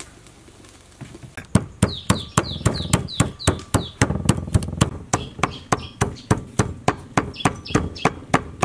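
Large kitchen knife chopping fermented fish paste (prahok) on a wooden cutting board: fast, regular chops, about three or four a second, starting about a second in, many followed by a short falling ring.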